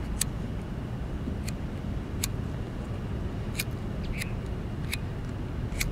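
A cigarette lighter flicked again and again: sharp clicks at uneven intervals about a second apart, over a steady low outdoor rumble.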